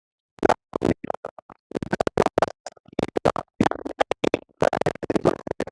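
Garbled voices chopped into rapid fragments by audio dropouts, so the talk comes through as a stuttering, scratchy stutter rather than clear words.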